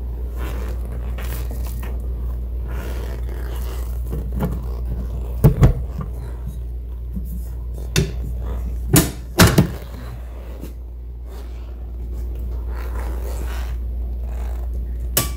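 Several sharp metal clacks and clicks as a steel weatherproof outlet box cover is handled and shut, then a single click near the end as a circuit breaker is switched on. A steady low hum runs underneath.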